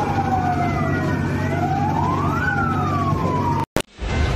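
Emergency vehicle siren wailing in a repeating sweep, rising quickly and falling slowly, over the low rumble of street traffic. It cuts off abruptly about three and a half seconds in.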